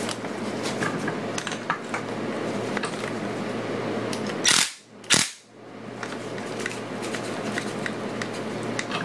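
Screws on a Yamaha QT50's rear gear case being tightened with a 19.2-volt cordless drill/driver: small clicks of the tool and parts over a steady hum, with two sharp, loud clacks about halfway through.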